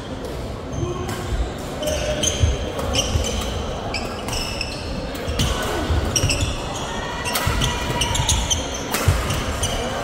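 Badminton hall during play: sharp racket strikes on shuttlecocks, short high squeaks of court shoes on the floor, and low thuds of footwork, over and over.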